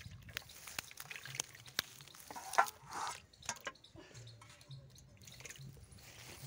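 Small fish splashing and flicking in shallow water in a steel pot, with faint drips and scattered small splashes, the biggest a little under three seconds in.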